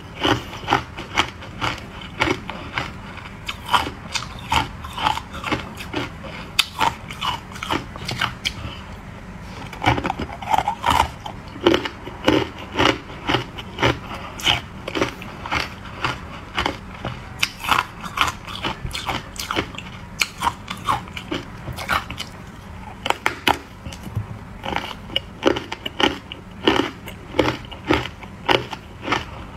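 Close-up crunching of hard ice dusted with matcha powder being bitten and chewed, a continuous run of sharp crunches about two a second, with a short lull about nine seconds in.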